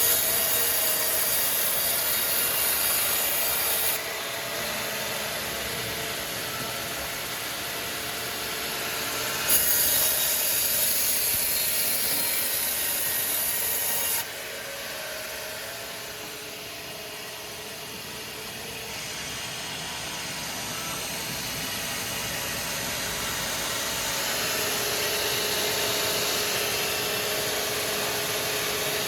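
Sawmill saw cutting through timber, a steady hissing rasp of blade in wood. It is loudest in two stretches, at the start and from about ten to fourteen seconds in, with the machinery running on more quietly between and after.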